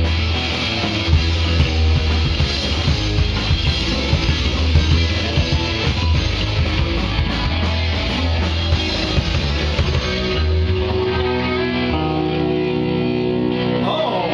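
Punk rock band playing with distorted electric guitars, bass and drums. About ten seconds in the drum hits stop and the guitars hold sustained, ringing chords as the song closes.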